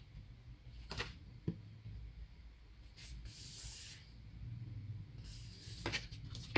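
Faint handling of a folded paper instruction leaflet: soft clicks about a second in, then a brief hiss of paper rubbing and sliding around three seconds in.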